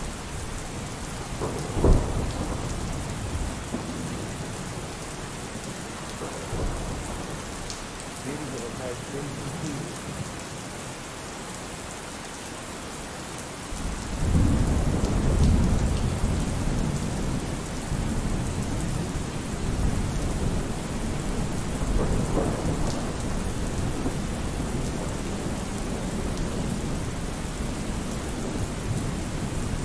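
Steady rain, with a sharp thump about two seconds in and a long rumble of thunder starting about halfway through.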